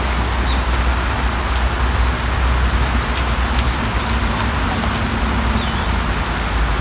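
Steady rain falling on a pond surface: a continuous hiss with faint scattered drop ticks, over a steady low rumble.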